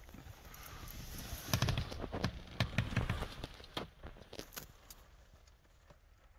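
Handling noise inside a car's cabin: clicks, light knocks and rustles from someone shifting in the seat and moving the hand-held camera, busiest in the first half and dying down to a few faint ticks after about four seconds.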